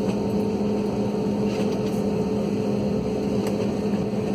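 Steady cabin noise inside a jet airliner taxiing on the apron: an even hum from the engines at taxi idle and the cabin air, with two low tones held throughout.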